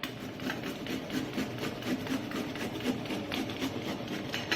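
Fresh ginger being grated on a kitchen hand grater: quick, even scraping strokes, about five a second.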